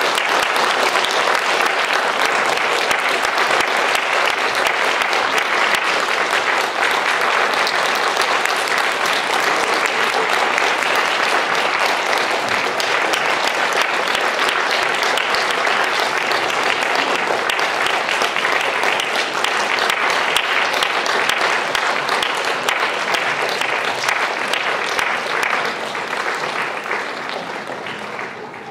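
Audience applauding steadily, dense clapping that dies away over the last couple of seconds.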